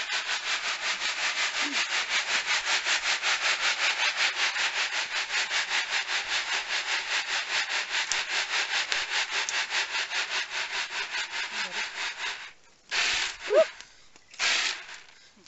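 Freshly roasted coffee beans rattling and rasping against a woven basket as they are shaken and tossed, about five shakes a second, to winnow off the chaff. The shaking stops near the end, followed by two short rustling bursts.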